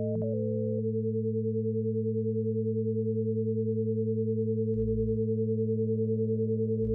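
Oscilloscope music from the Unilateral Phase Detractor, a Raspberry Pi running Pure Data: a steady electronic drone of several held sine tones, the X/Y audio signals that draw the shapes on the scope. A click and a pitch step come right at the start, then the upper tone pulses quickly. A low thump with a click comes about five seconds in, and another at the end.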